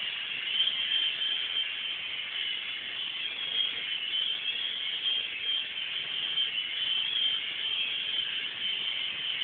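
Small indoor remote-control toy helicopter flying, its electric motors and rotors giving a steady high whine that wavers slightly in pitch.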